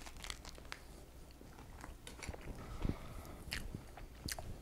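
A person biting into and chewing a toasted bacon and tomato sandwich: crisp crunches and small mouth clicks, with a soft knock about three seconds in.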